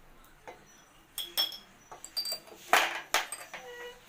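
Kitchen utensils clinking and knocking in a few scattered light taps, the last of them, near the end, ringing on briefly like a struck metal vessel.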